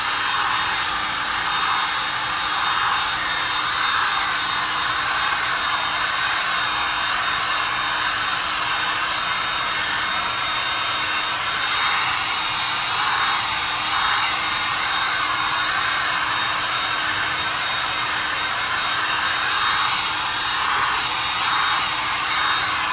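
Electric heat gun blowing steadily over freshly poured resin, warming it to bring out air bubbles and help it flow. A steady rush of air with a faint constant tone through it.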